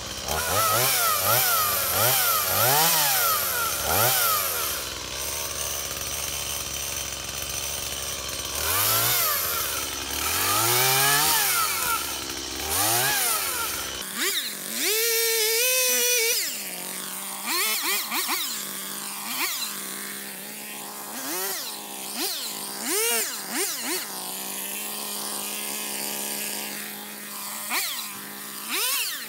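Stihl MS 170 chainsaw's small two-stroke engine revved up and down again and again in short bursts as it cuts through brush, with one longer high rev about halfway through.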